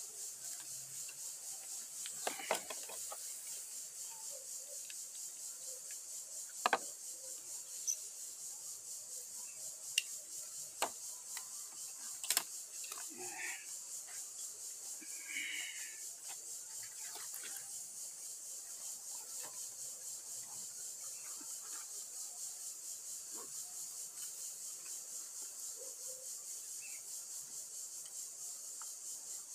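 A backpack being handled and packed: rustling and rubbing of the bag with several sharp clicks, most of them in the first half. Under it a steady high-pitched insect drone pulses about twice a second.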